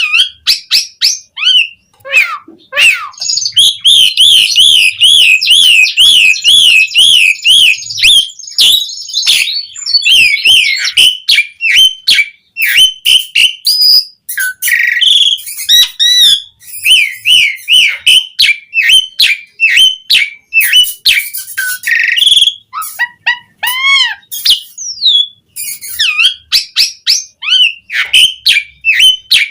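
Pied starling (jalak suren) singing a long, varied song of whistles, clicks and glides. A few seconds in it holds a fast wavering trill, and later there is a short run of falling notes.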